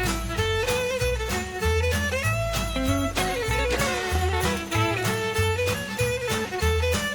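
Upbeat instrumental background music with a steady beat, a bass line and a moving melody.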